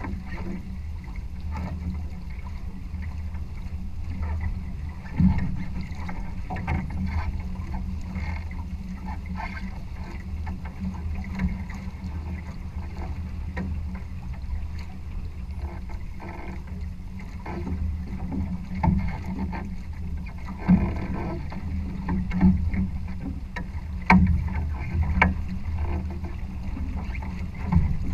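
A Challenger trimaran sailing through chop: a steady low rumble of water and wind on the hull, broken by about half a dozen sudden thumps, most in the second half, as the boat slaps into waves.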